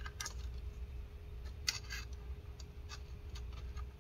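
A few faint, short scratches and light clicks as fingers press and route a thin wireless antenna wire along a laptop's inner frame.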